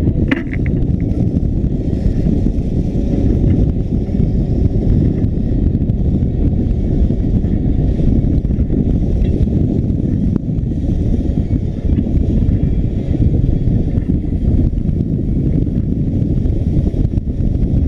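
Outboard motor running with the boat under way, mixed with a steady rush of wind and water at the stern. There is a short knock just after the start.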